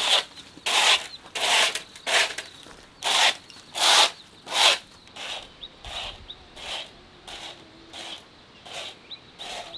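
Broom sweeping a packed-dirt yard: rhythmic scraping swishes, about three strokes every two seconds, loud for the first half and softer after that.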